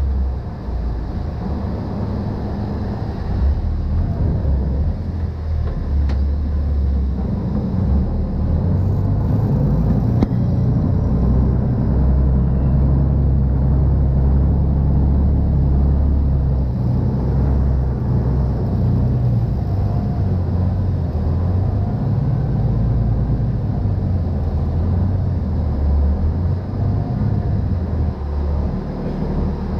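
Khlong Saen Saep express boat's engine running, a loud steady low rumble.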